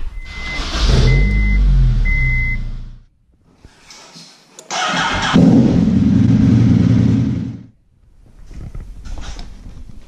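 A car engine is started twice. Each start runs about three seconds as it cranks and catches into a loud rev, with a short gap between them. A high electronic beep sounds three times during the first start.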